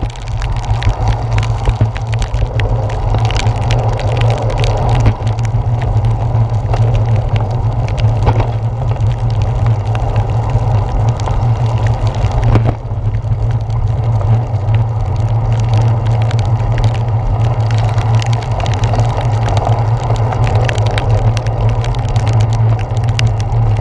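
A bicycle ride in heavy rain, heard through a handlebar-mounted GoPro Hero 4's housing: a steady, loud low rumble of wind and road vibration, with frequent small taps and clicks over it.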